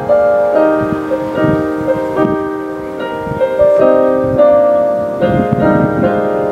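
Piano music: a melody over held chords, with new notes coming in about every half second.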